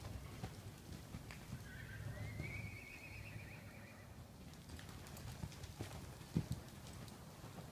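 Horse loping on soft arena sand: a run of dull, muffled hoofbeats, one sharper thud near the end. About a second and a half in, a long high call rises and then holds for a couple of seconds.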